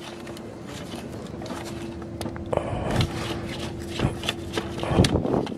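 Scraping and clicking of a hand and tools working in a car's engine bay, taking out a spark plug, with a few louder knocks in the second half over a faint steady hum.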